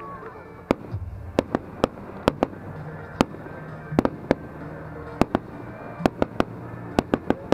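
Display fireworks going off: an irregular run of sharp bangs and cracks, roughly three a second, beginning about a second in.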